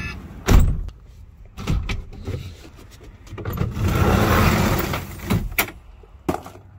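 Van doors being worked by hand: a loud latch clunk about half a second in and a few knocks, then about a second of rolling noise as a sliding door runs along its track, and a couple of clicks near the end.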